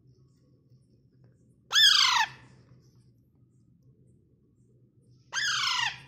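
Alexandrine parakeet giving two loud squawks about three and a half seconds apart, each a short call that falls in pitch.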